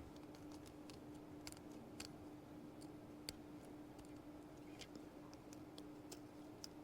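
Near silence: faint, irregularly spaced small clicks of tools handling a circuit board during desoldering, over a faint steady hum.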